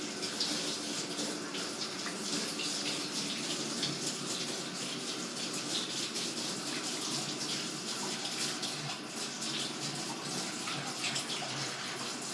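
Water running steadily from a tap, with hands being washed under it.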